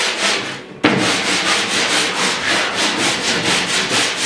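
Table saw cutting a timber board: a loud, harsh steady noise with a quick even pulsing. It drops away briefly just before a second in, then comes back abruptly.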